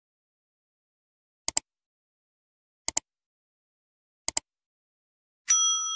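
Subscribe-button animation sound effects: three quick double mouse clicks about a second and a half apart, then a bell ding near the end that rings on and fades.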